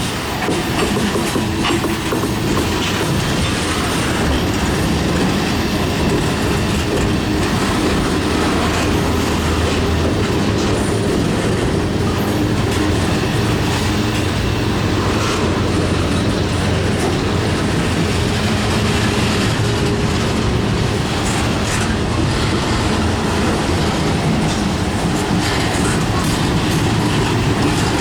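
CSX freight train cars rolling steadily past close by: a continuous loud rumble of steel wheels on rail, with scattered clicks from the wheels over the track.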